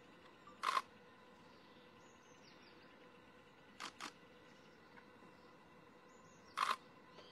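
DSLR camera shutter firing in short bursts of quick clicks: one burst about a second in, two quick clicks just after the middle, and another burst near the end, over a faint steady hiss.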